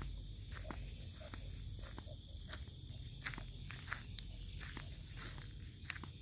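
Footsteps walking at a steady pace, about two steps a second, over steady high-pitched trilling of night insects.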